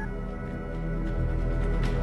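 Dramatic TV score music: held tones over a steady low drone, swelling a little about a second in.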